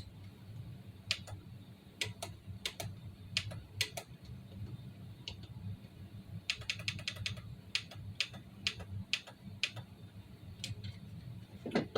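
Scattered light clicks, with a quick run of about ten clicks a little past the middle, over a faint steady low hum.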